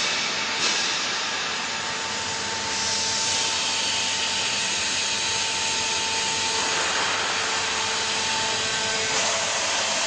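Vertical hydraulic baler's power unit, an electric motor driving the hydraulic pump, running steadily with a whine and hiss as the pressing platen is raised off the bale. The hiss turns brighter about three seconds in.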